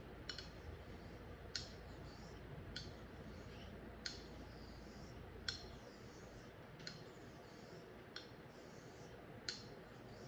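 Straight razor honed with slurry on a Japanese natural Nakayama whetstone: faint swishing strokes of the blade through the slurry, with a sharp click about every 1.3 seconds as the razor is flipped over on its spine at each turn.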